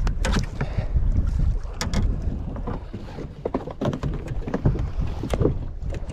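Wind rumbling on the microphone aboard a small fishing boat, with scattered knocks and taps.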